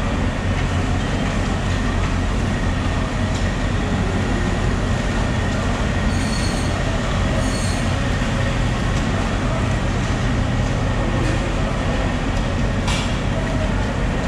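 Steady, loud rumbling background noise with a faint steady high whine.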